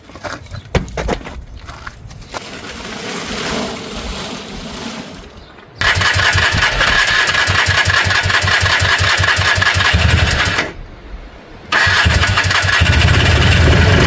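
Polaris 300 single-cylinder two-stroke ATV engine being started after a top-end rebuild with a new oversized piston: a few seconds of clicks and cranking, then it catches about six seconds in and runs with a fast even pulse. It drops out for about a second, then runs again, louder near the end.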